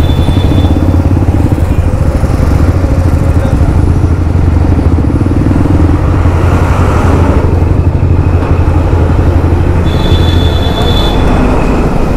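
Motorcycle engine running at a steady cruise under heavy wind rush on the microphone. A brief, thin, high-pitched tone sounds about ten seconds in.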